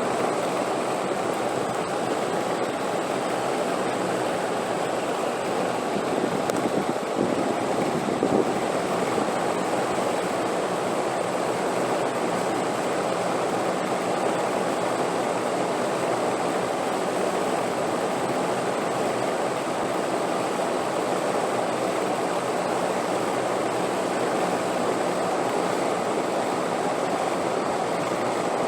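Steady rushing wind, even and unbroken, swelling slightly about seven seconds in.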